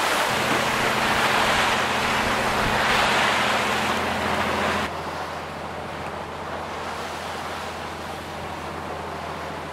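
Water rushing along the hull and churning in the wake of a Nordhavn 40 trawler underway, over the steady low hum of its diesel engine. About five seconds in the sound drops suddenly to a quieter, steady rush of water and wind.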